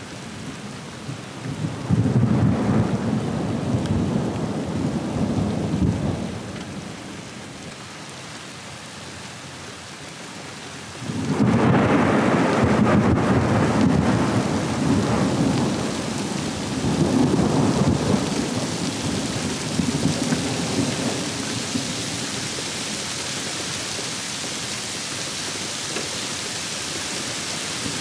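Thunder rumbling in long rolls: one about two seconds in, and a louder, longer one starting about eleven seconds in. Rain falling on the river grows into a steady hiss toward the end.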